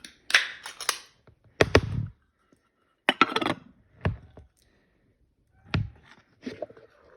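Wet cat food being scooped out of tin cans into feeder bowls: a run of short scrapes and clinks of utensil on metal, with a duller knock a little under two seconds in.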